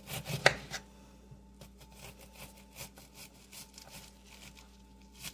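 Kitchen knife slicing down through a checkerboard-scored Vidalia onion held in the hand, dicing it: a sharper knock about half a second in, then a run of faint, crisp cuts at about two or three a second.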